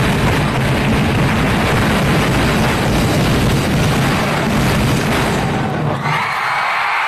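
Loud festival street-dance music heavy with drums, mixed with crowd noise. About six seconds in, the deep low end cuts out abruptly, leaving brighter music and crowd sound.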